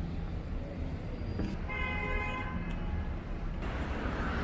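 Road traffic rumbling, with one horn-like toot of about a second near the middle.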